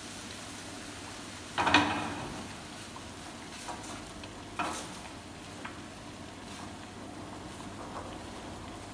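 A silicone spatula stirring a cream sauce in a frying pan on a gas burner, over a steady hiss. The pan knocks sharply just under two seconds in, the loudest sound, and again at about four and a half seconds.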